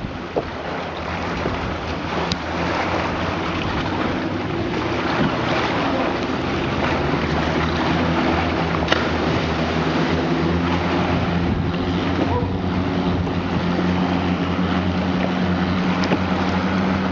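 Boat engine running steadily at a low, even pitch, mixed with wind noise on the microphone and a hiss of water.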